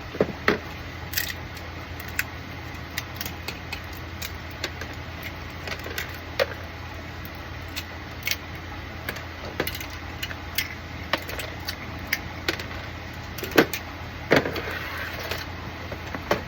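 Irregular clicks and light clatter of small hard 3D-printed plastic parts being handled and pressed or snapped together, over a steady background hum. The sharpest clicks come a couple of seconds before the end.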